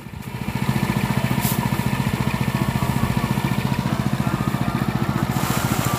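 Small Honda petrol engine driving a homemade rice-threshing machine by belt and pulley, running with a steady, rapid pulsing beat. It grows louder within the first second, then holds steady.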